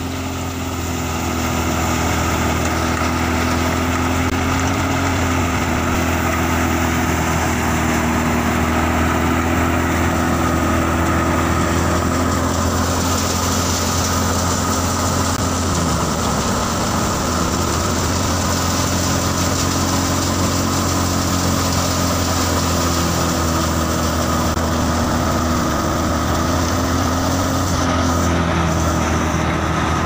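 Tractor-powered wheat thresher running steadily: a constant mechanical drone from the tractor's engine and the threshing machine as wheat is fed through.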